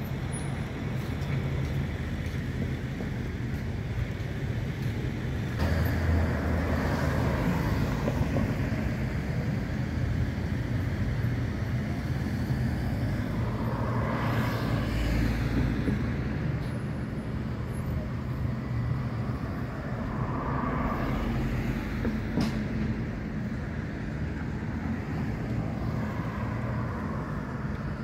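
Road traffic: a steady low engine hum with vehicles passing, the loudest pass about halfway through and another a little later.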